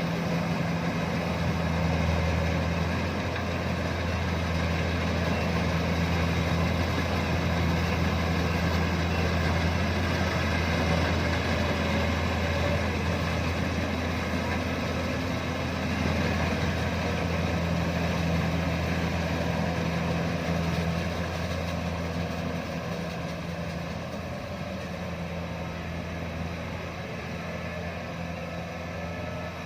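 Rice combine harvester running steadily: a deep, even engine hum over a dense clatter of working machinery, easing a little quieter in the last several seconds.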